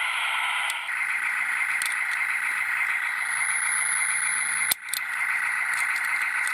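Die-cast toy ambulance minicars rolling down a slope: a steady rattling whir of small wheels, broken by a brief gap and a click about five seconds in.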